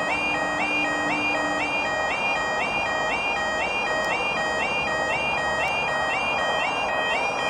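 Level crossing warning alarm sounding loudly: an electronic two-tone call that sweeps up from a lower note into a higher one, about twice a second. It signals that the crossing is closing, barriers lowering, for an approaching train.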